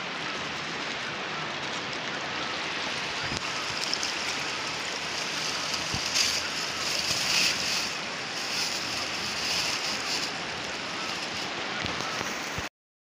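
Steady rushing of a fast-flowing river, with brief louder patches of hiss in the middle and a few faint knocks; the sound cuts off abruptly near the end.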